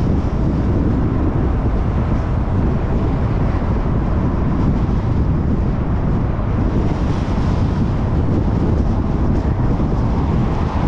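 Steady road and wind noise from a car driving at speed on an expressway, with wind buffeting the microphone. The low rush holds evenly throughout.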